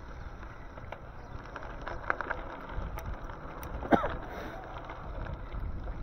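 Steady wind and road rumble while riding an e-bike, with a few sharp clicks and, about four seconds in, a knock followed by a brief squeak.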